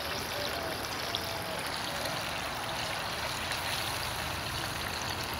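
Chicken fried steaks deep-frying in hot oil in a cast-iron Dutch oven: a steady sizzling hiss.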